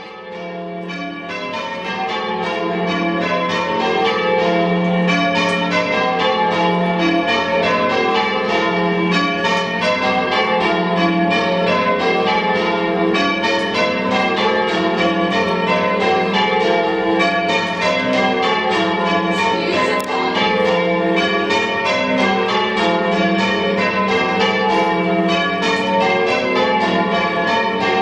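Carfax Tower's heavy ring of six church bells, cast by Richard Keene in 1676 with the tenor in F, being change rung: the bells strike one after another in a steady, even rhythm, each note ringing on under the next. The ringing fades in over the first few seconds, then holds steady.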